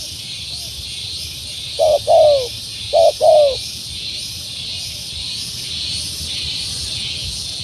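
Spotted dove (tekukur) giving one cooing phrase about two seconds in: a short coo, a longer drooping coo, then two quick coos. A steady high insect-like hiss runs under it.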